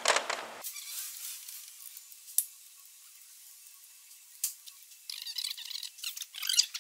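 Mostly quiet, with a couple of sharp clicks and, near the end, a stretch of light irregular clattering from hand work on a truck engine.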